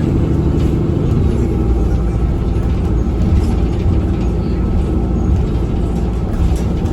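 Steady, loud low hum and rumble inside a Nova Bus LFS city bus as it drives. The hum is an unusual noise the rider cannot identify.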